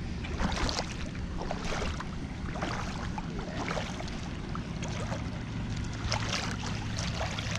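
Irregular splashing of water as a hooked redfish thrashes at the surface while it is reeled toward the bank, over a low rumble of wind on the microphone.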